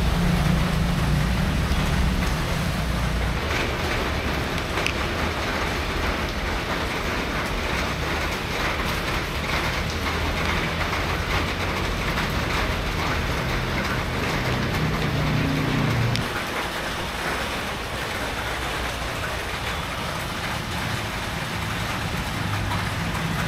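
Steady street traffic noise: a continuous hum of passing vehicles, with a slight drop in level about two-thirds of the way through.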